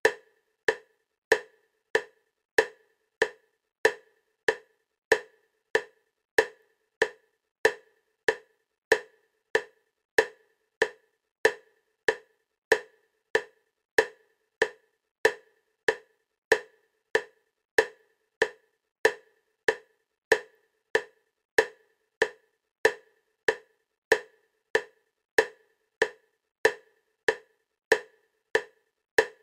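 Bilateral-stimulation clicks for EMDR: short, identical clicks at a steady 96 per minute, alternating from side to side.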